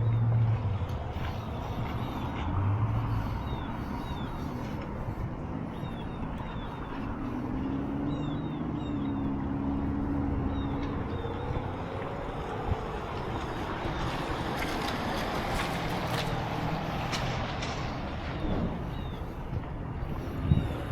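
Motor vehicles running and passing over a steady outdoor traffic rumble. One vehicle's engine note is heard most clearly about a third of the way in, and a louder stretch of passing noise comes a little after the middle.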